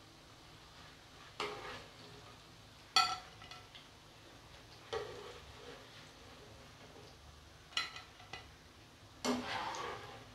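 Wire spider skimmer knocking against a frying pan five times as fried fritters are lifted out of the oil, each knock with a short metallic ring, over a faint sizzle of hot oil.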